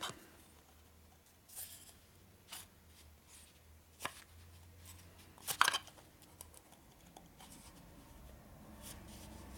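A few sharp clicks and light scrapes from handling the small metal parts of a nitrous oxide transfer pump, the loudest about five and a half seconds in, over a faint low hum.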